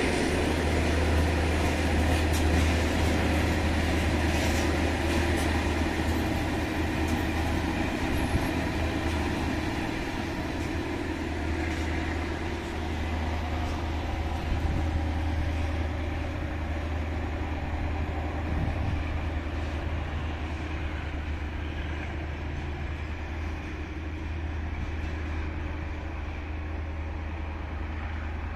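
Loaded freight hopper wagons rolling past on the rails, a continuous rumble with occasional wheel knocks, slowly growing quieter as the train moves away.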